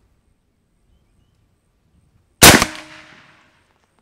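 A single shot from a .45-calibre Bushbuck 45 big-bore PCP air rifle firing a 470-grain projectile: one loud, sharp report about two and a half seconds in, with a brief ring that fades over about a second.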